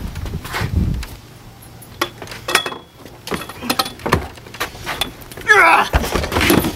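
Scattered knocks and scuffling clatter from people scrambling around a wooden deck and railing, then a short wavering shout or yelp about five and a half seconds in.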